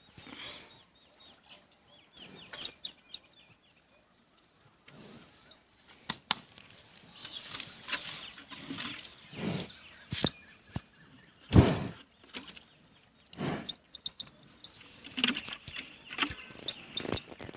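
Water buffalo being milked by hand: irregular spurts and rustles, with a single loud thump about halfway through.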